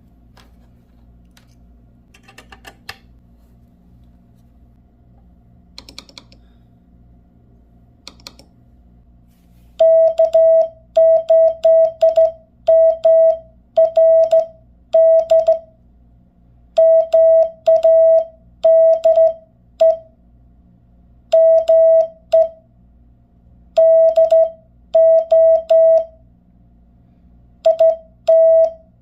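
Morse code sent by hand on a straight key: a steady mid-pitched sidetone beep switched on and off in dots and dashes, each element opening and closing with a click of the key. A few separate clicks of the key come before the sending starts.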